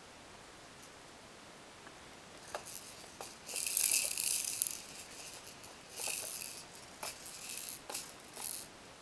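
Small beads rattling inside a clear plastic ball toy on a baby's exersaucer, turned by the baby's hand. The rattling comes in a run of irregular bursts starting about two and a half seconds in; the longest and loudest lasts about a second, a little after three and a half seconds in.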